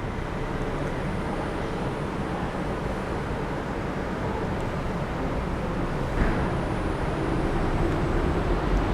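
Steady background rumble and hiss of a car park, growing slightly louder near the end, with a faint, thin, high whine throughout and a brief soft noise about six seconds in.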